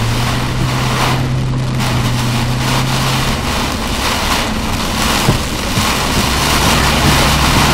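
Torrential rain pouring onto the windshield and body of a moving vehicle, heard from inside the cab: a loud, even wash of rain and road spray, with the vehicle's steady low drone underneath.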